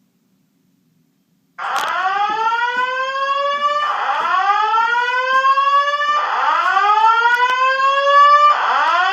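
Fire alarm voice evacuation speakers of a Simplex 4100ES system sound a whoop tone. It comes on suddenly about a second and a half in, then repeats as loud rising sweeps about every two and a quarter seconds, each sweep gliding upward. This is the evacuation alert signal that goes with the recorded voice message telling occupants to walk to the nearest stairway.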